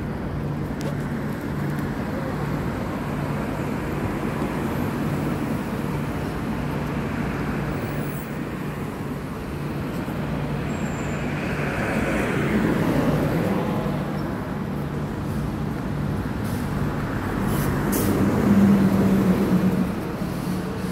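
Road traffic on a multi-lane city street: a steady low engine hum, with cars passing and their tyre and engine noise swelling twice, the louder pass near the end.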